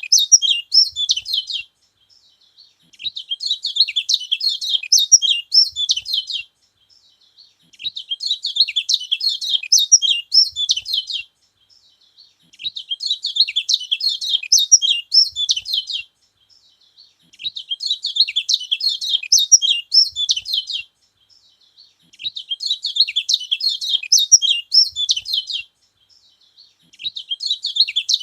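Kecial kuning (lemon-bellied white-eye) singing: rapid, high twittering phrases in bouts of about three to four seconds, separated by short pauses of about a second and a half and repeating evenly six times.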